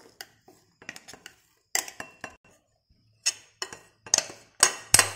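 A steel spoon scraping and knocking against the inside of a stainless-steel mixer-grinder jar, with clinks against a glass bowl, as crumbly ground peanut mixture is tipped out. The sharp clinks come quicker and louder in the last two seconds.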